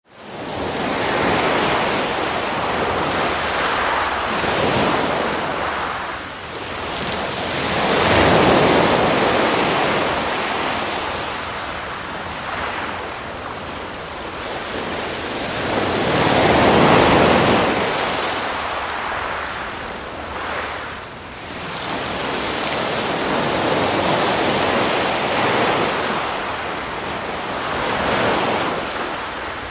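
Ocean waves breaking and washing in, a continuous rush that swells and ebbs every several seconds, with the biggest surges about 8 and 17 seconds in. It starts abruptly out of silence.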